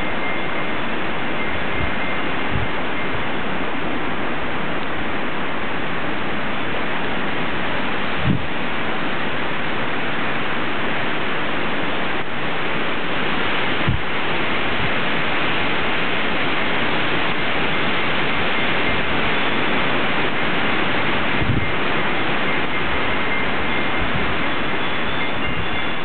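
Blizzard wind, 30 to 40 miles an hour, blowing over the microphone: a loud, steady rushing noise with a few dull low thumps of buffeting.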